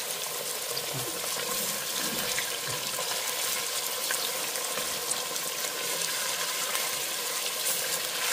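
Pork ribs sizzling in hot oil in a stainless-steel pressure cooker pot as they are browned, with a steady hiss and scattered small crackles. A spatula turns the pieces now and then.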